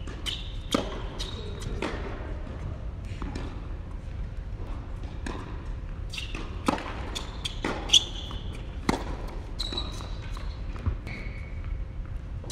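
Tennis balls being struck and bouncing on an indoor hard court: irregular sharp pops of ball on racket and ball on court, the loudest about eight seconds in, with a few short high squeaks between them.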